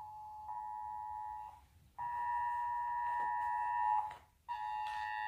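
Electronic beeper sounding a steady high tone in long beeps with short silent breaks, the last beep shorter.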